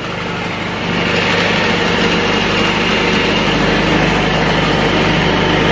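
GY6 150cc scooter's single-cylinder four-stroke engine running steadily just after starting, a little louder from about a second in. It is running now that a new stator has restored spark.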